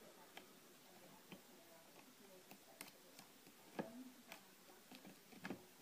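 Faint, irregular metallic clicks of a lock pick working the pins of a 4-pin Yale 40mm padlock, the pick inserted upside down to push the lock into a false set.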